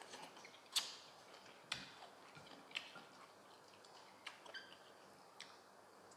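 Quiet eating sounds from someone chewing braised chicken feet: about half a dozen short, sharp mouth clicks and smacks of lips and teeth, scattered and irregular, the loudest just under a second in.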